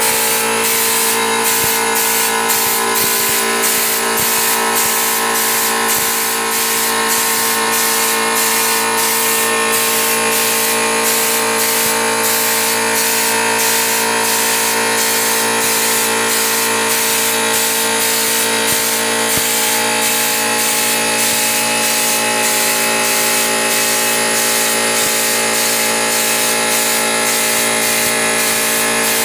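Hopper spray gun hissing steadily as compressed air at about 90 psi blows textured stone-finish paint onto a wall, over the steady hum of a small 25-litre air compressor running.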